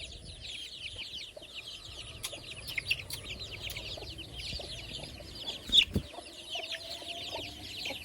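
A brood of chicks cheeping continuously, many high peeps overlapping. A sharp knock a little before six seconds in is the loudest sound.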